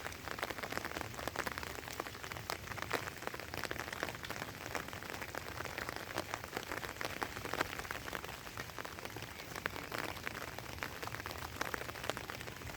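Steady rain falling: many fine drops ticking without a break.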